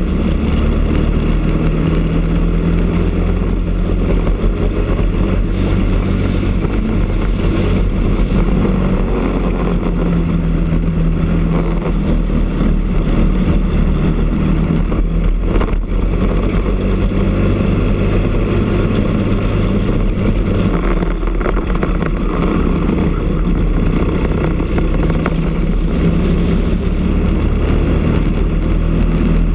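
Briggs & Stratton LO206 single-cylinder four-stroke kart engine running hard at racing speed, heard onboard, its pitch dropping and rising a few times as the kart lifts off and accelerates through corners.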